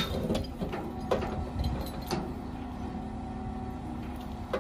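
Heavy machine's engine running steadily, with a few short knocks scattered through.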